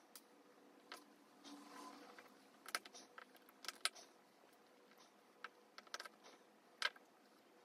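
Tiny plastic mini building bricks being pressed together by hand: scattered sharp clicks as pieces snap onto the build, a few louder ones about three and four seconds in and again near the end, with a soft handling rustle.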